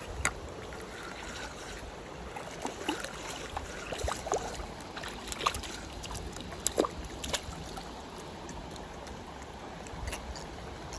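Shallow mountain stream running steadily over rocks, with a scatter of sharp clicks and taps in the middle few seconds.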